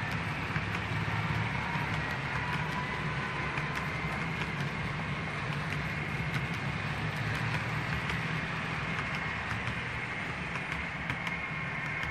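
00 gauge model passenger train running along the layout track: a steady hum and rumble of the motor and wheels on the rails, with scattered light clicks.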